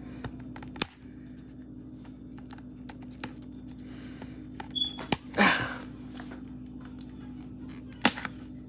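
Scattered sharp clicks and taps, with a brief louder rustle about five seconds in, from hands working open a power bank's packaging, over a steady low background hum.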